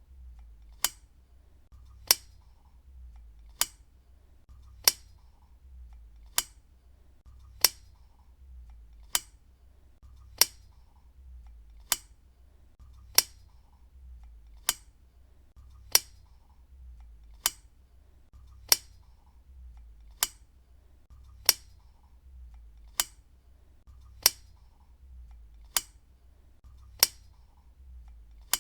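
Desk lamp switch clicked on and off over and over, a sharp click about every second and a half, alternating slightly louder and softer clicks.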